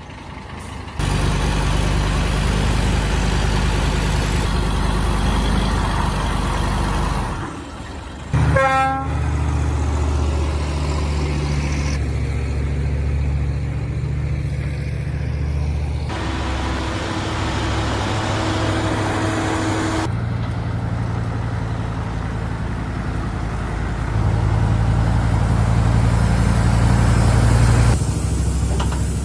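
Heavy diesel machinery engines running steadily across several cut-together clips, with a brief rising tone about eight and a half seconds in.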